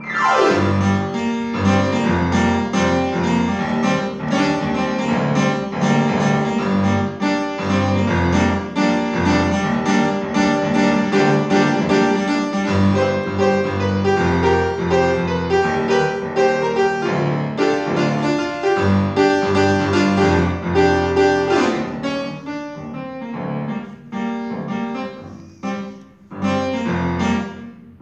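Solo upright piano playing a waltz, loud and busy at first, then quieter with short pauses between phrases from about twenty-two seconds in.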